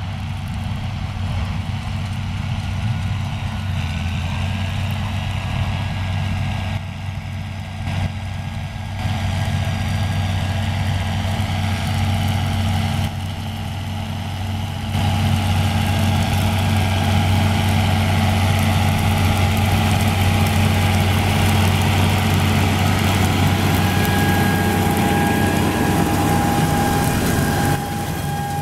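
John Deere 6920 tractor's six-cylinder diesel engine running steadily as it pulls an air seeder sowing wheat, with a steady high whine over the deep engine hum. It gets louder about halfway through as the rig comes close.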